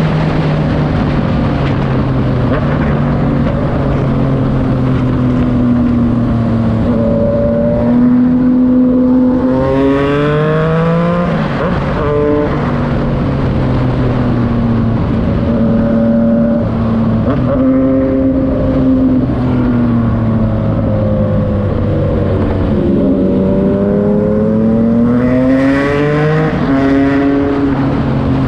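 Yamaha MT-09's inline three-cylinder engine running through a Racefit Slash aftermarket exhaust. It holds a steady note for long stretches, and twice the pitch climbs sharply and then falls away: about ten seconds in and again near the end.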